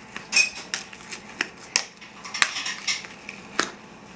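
A metal spoon stirring thick, sticky slime in a plastic bowl: irregular clicks and scrapes as the spoon knocks and drags against the bowl, about two or three a second.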